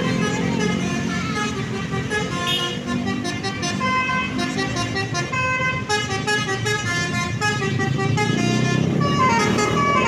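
A tour bus's basuri musical horn playing a tune of quick stepped notes over the rumble of the bus engine running.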